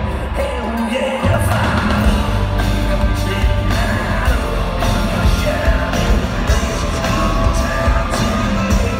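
A country-rock band playing live, with a male lead singer, heard from the crowd in an arena. The low end is thin at first, and the full band's bass comes back in about a second in.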